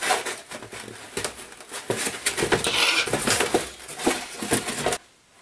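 Foam board pieces of a model fuselage being handled on a wooden workbench: irregular squeaky rubbing, crackling and light knocks. The sound cuts off abruptly near the end.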